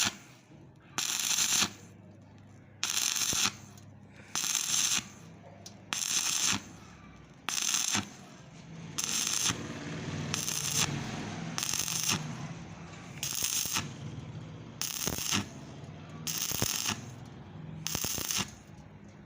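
Welding arc crackling in short, evenly spaced bursts, each about half a second long and about one every second and a half, like a stitch weld laid in a row of short passes.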